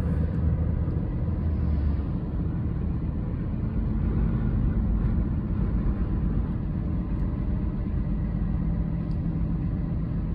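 Road noise inside a moving car: a steady low rumble of tyres and engine heard from the cabin.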